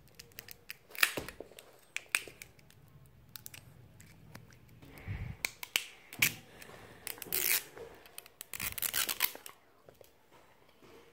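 Plastic-coated paper wrapping of an L.O.L. Surprise! ball being picked at and torn open by hand: scattered crinkly crackles and several short tearing rips, the longest near the end.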